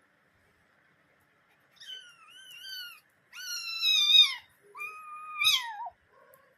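A cat meowing three times, drawn-out high-pitched calls, the second the loudest and the last sliding down in pitch at its end.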